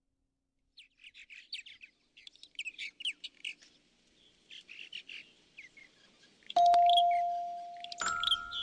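Birds chirping and twittering in quick high phrases. About six and a half seconds in, a loud bell-like chime note is struck and rings on, then a second, higher note is struck about a second and a half later.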